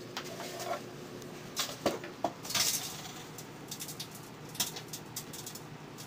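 Microwave oven running with a steady hum while a DVD inside arcs, the metal layer of the disc sparking with irregular sharp crackles and snaps, the loudest around two seconds in.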